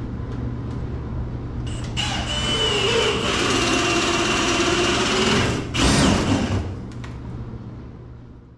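Cordless drill boring a hole up through a wooden floor joist for cable: the motor starts about two seconds in and runs steadily with a whine for about three and a half seconds, stops briefly, then a short second burst, before the sound fades out.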